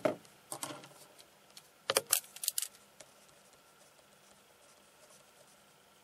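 Pens and paper being handled: a handful of short clicks and scrapes within the first three seconds as one pen is put down and another picked up, then only faint room tone.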